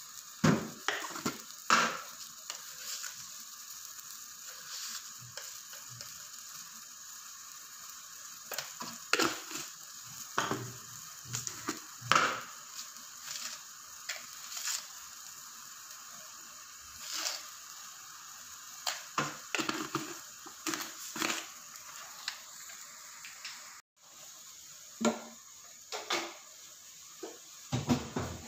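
Pumpkin and fish soup boiling hard in an aluminium pot on a gas stove: a steady hiss with frequent irregular pops and knocks.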